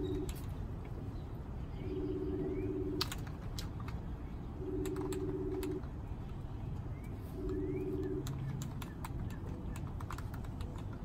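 A low two-note tone, each sounding under a second and repeating about every two and a half seconds, over scattered light clicks and a few faint bird chirps.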